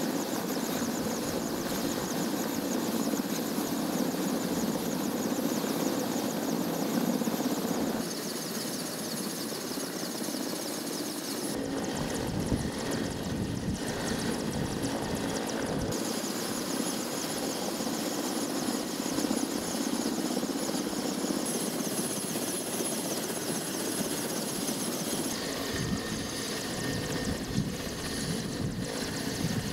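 Mi-17 helicopter running: steady turbine whine and rotor noise, changing abruptly in tone and balance several times.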